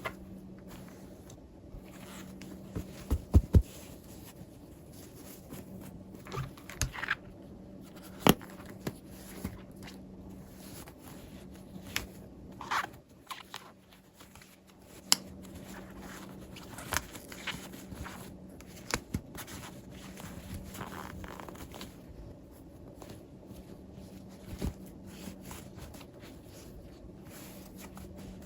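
Hands unboxing small plastic toys: scattered clicks, taps and short crinkling rustles of plastic and packaging, the loudest a pair of sharp clicks about three seconds in, over a faint steady low hum.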